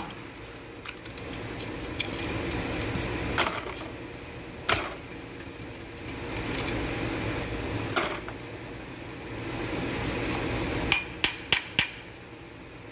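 Scattered sharp metallic clinks and knocks of hand tools and engine parts, as during an engine teardown, with four quick clinks in a row near the end.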